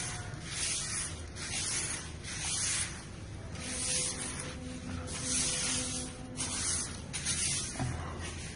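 A broom sweeping gritty volcanic ash across a tiled floor: a rasping swish repeated about once a second.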